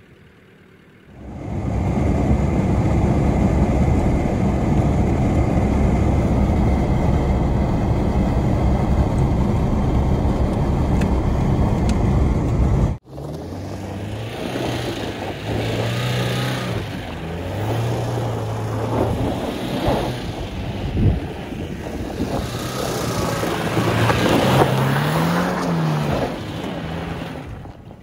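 Steady loud rush of wind and road noise as a Suzuki Jimny drives along. About halfway through it cuts to the Jimny's engine heard from outside, revving up and down as it spins doughnuts on snow.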